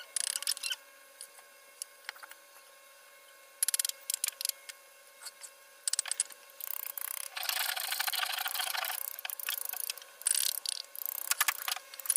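A carving chisel cutting into a wooden sofa arm: scattered short sharp knocks, then a long scraping pass of about two seconds as the blade is pushed through the wood, then more knocks near the end.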